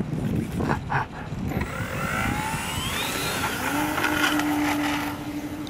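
Hobbyking Sbach RC plane's motor and propeller spooling up for the takeoff run: a whine that rises in pitch from a couple of seconds in, then holds at full throttle. A steady low tone joins near four seconds in.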